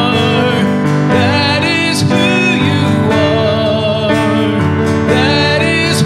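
Worship song played by a band with guitar, the singers holding long, slightly wavering notes.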